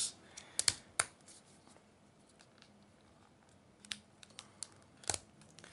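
Thin clear plastic Spigen Air Skin case being pressed and clipped onto an iPhone 7 Plus: a few sharp plastic clicks and snaps, a pair about a second in and a cluster near the end, with faint handling rustle between.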